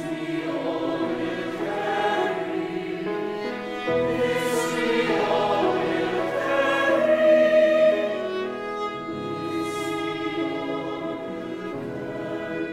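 Mixed choir of women's and men's voices singing a slow, sustained passage with violin accompaniment, swelling to its loudest about eight seconds in, then easing off.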